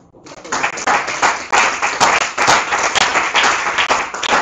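Audience applauding, a dense patter of many hands clapping that breaks out just after the start and keeps going.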